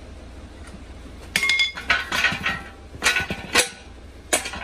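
Exhaust pipe knocking and clinking against the frame and rollers of a manual roller pipe bender as it is shifted and pulled out by hand. There is a series of sharp, ringing metal clanks, starting about a second in.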